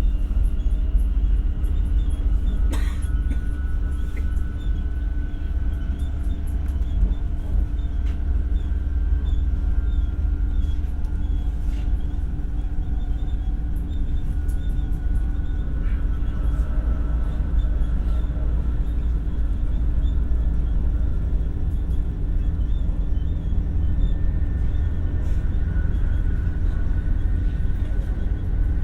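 Interior running sound of an X60 (Alstom Coradia Nordic) electric commuter train at speed: a steady low rumble of wheels on rail with a faint electric motor whine that drifts slightly in pitch. A sharp click about three seconds in.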